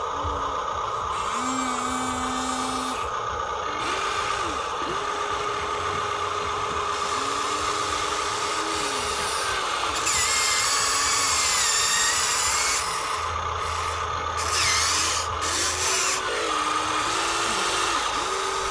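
Small electric gear motors of toy RC construction machines whirring over a steady whine. Several short runs start and stop, their pitch rising and falling, with a louder, higher whirring about ten to thirteen seconds in.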